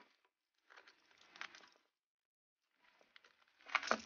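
Crinkling and scraping of packing tape and cardboard as a taped parcel is opened with a utility knife, in two bursts with a short quiet gap between; the louder, sharper sounds come near the end.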